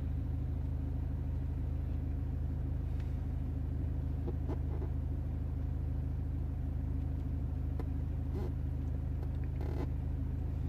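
BMW 520d's 2-litre four-cylinder diesel idling, a steady low rumble heard inside the cabin, with a few faint clicks.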